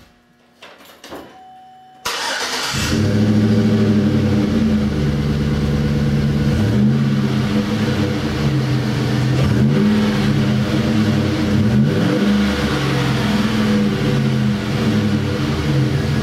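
A 2011 GMC Sierra's engine, heard at the tailpipe through a newly fitted Flowmaster Force II single-outlet cat-back exhaust. After a few faint clicks it cranks and fires about two seconds in, then settles into a steady idle.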